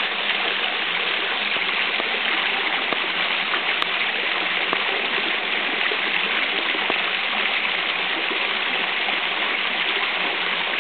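Flowing stream water rushing steadily, with water falling into a rocky pool.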